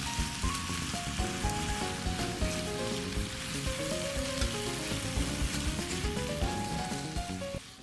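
Thin-sliced pork sizzling in oil in a nonstick frying pan as it is turned with chopsticks, a steady frying hiss that cuts off just before the end.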